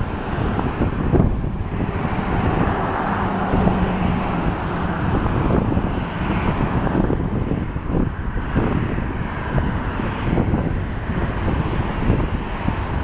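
Boeing 737-700's CFM56-7B turbofan engines at takeoff thrust as the airliner lifts off and climbs away: a steady jet noise, strongest in the low end.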